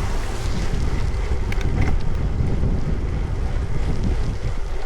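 Strong wind buffeting the microphone of a camera riding on a moving bicycle: a steady, heavy low rumble.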